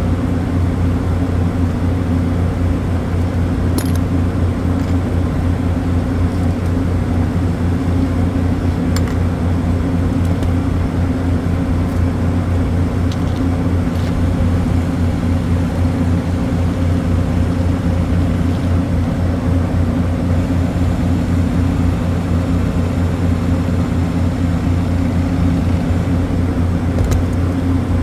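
Refrigeration compressor rack running with a steady deep mechanical hum, and a few faint clicks of tools being handled.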